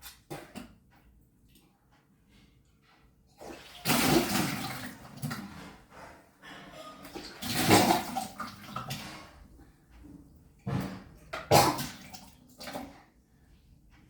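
A person deliberately vomiting up the water drunk for kunjal kriya, a yogic stomach cleanse induced with two fingers down the throat: three splashing gushes of water, about 4, 8 and 11 seconds in.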